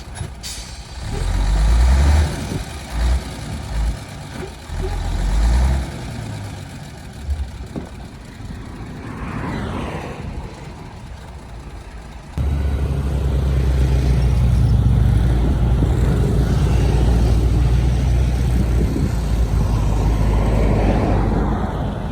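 Heavy diesel engine of earthmoving machinery working: uneven surges of low rumble for about twelve seconds, then a sudden jump to a loud, steady run that eases off near the end.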